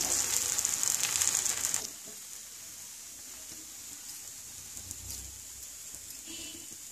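Biuli dal batter sizzling in hot oil in a nonstick pan, a crackling hiss that is loud for about the first two seconds and then drops to a faint sizzle.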